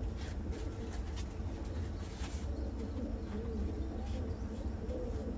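Domestic pigeons cooing: several short, wavering low coos over a steady low rumble, with a few light clicks.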